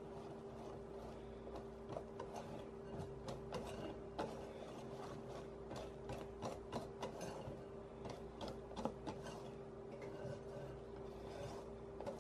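Wire whisk mixing meringue into soft batter in a glass bowl: irregular light clicks of the wires against the glass. A faint steady hum runs underneath.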